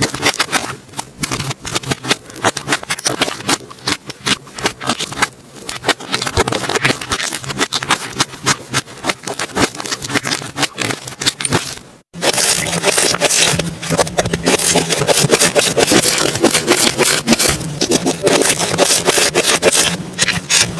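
Slime being worked by hand, giving dense, irregular sticky crackling and popping. After a cut about twelve seconds in, the crackling is louder and denser.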